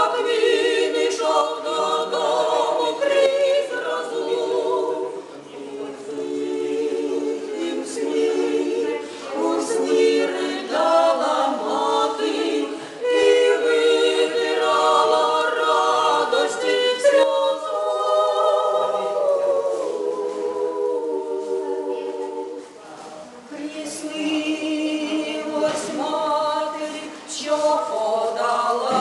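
A women's vocal trio singing a song together a cappella, three voices at once, with a brief drop between phrases a little over two-thirds of the way through.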